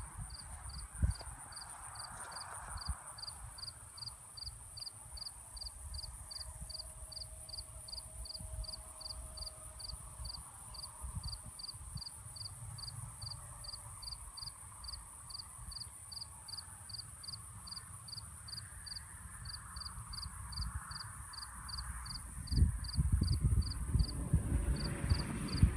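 Insects chirping in a steady, regular rhythm: a thin high trill holds throughout, with a sharp chirp repeating about two and a half times a second. A low rumble underneath grows heavier near the end.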